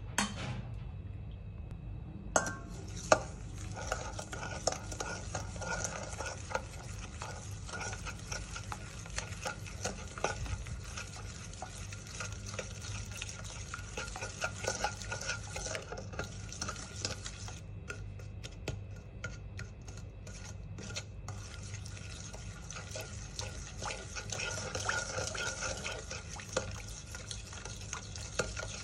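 Stirring in a mixing bowl: a utensil scrapes and clinks against the bowl continuously while cookie dough ingredients are mixed. Two sharp knocks a few seconds in are the loudest sounds. About two-thirds of the way through, the stirring thins to scattered clicks for a few seconds, then resumes.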